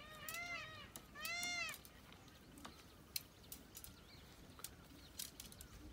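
An animal's mewing calls, short and each rising then falling in pitch, repeated quickly for the first two seconds, then a few faint clicks.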